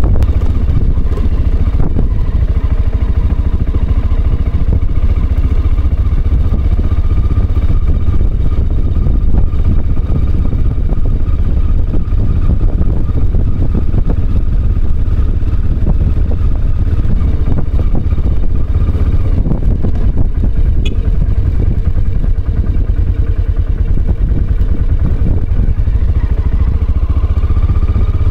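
Aprilia Pegaso's single-cylinder engine running steadily while the motorcycle rides along a gravel road, with a heavy low rumble throughout and a faint whine that rises slightly near the end.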